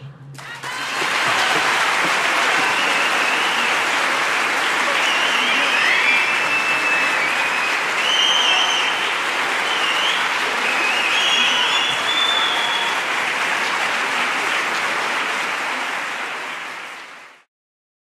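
Large audience applauding, with a few cheering shouts over the clapping; the applause builds up in the first second and fades out shortly before the end.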